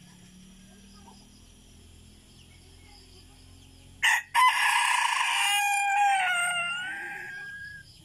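Red junglefowl rooster crowing once, about four seconds in: a sharp opening note, a brief break, then a drawn-out call of about three and a half seconds that fades and trails off near the end.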